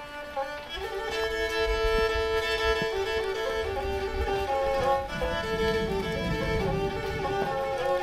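Background music: a Black Sea kemençe, a small bowed fiddle, playing a melody of held notes.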